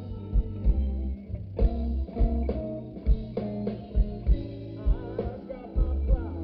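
Live blues band playing: guitar over a bass line and a steady drum beat, without singing.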